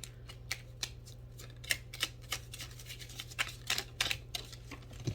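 Oracle cards being handled and shuffled: a string of irregular light clicks and flicks, with a steady low hum underneath.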